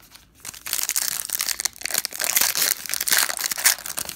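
Crinkly plastic wrapper of a 2013 Prestige football card pack being torn open and crumpled by hand, a dense crackling that starts about half a second in.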